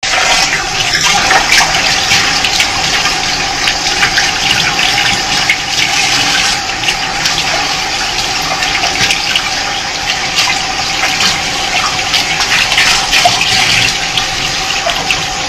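Water running steadily from a bathroom sink tap, the stream splashing onto a small puppy and the hand holding it and into the basin.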